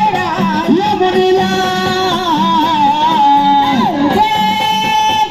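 Marathi gondhal devotional folk music: a melody of long held, sliding notes over a steady drum beat of about two strokes a second.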